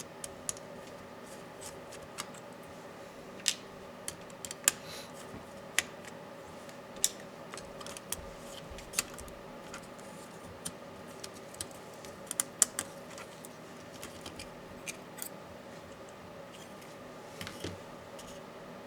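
Irregular sharp clicks and taps of small plastic and metal parts as a Dell Latitude 7410 laptop is taken apart by hand, with a brief scrape near the end.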